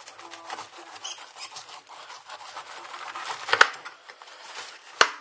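Kitchen knife sawing through a pineapple's tough, fibrous rind near the crown: a crackly, rasping scrape. Two sharp knocks come about three and a half seconds in and again near the end.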